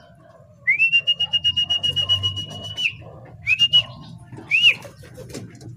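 A whistle: one long high, fluttering trill of about two seconds, then two short rising-and-falling whistles about a second apart.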